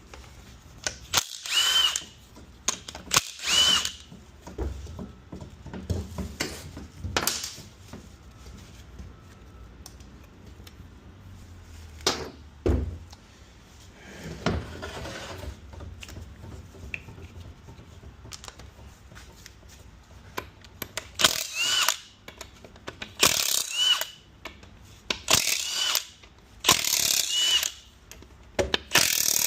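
Cordless power tool run in short bursts of about a second, each ending with a brief rising whine, spinning out bolts on a Ford 4R70W automatic transmission during teardown. Two bursts come near the start and a quick run of five near the end, with occasional metal knocks and handling of parts between.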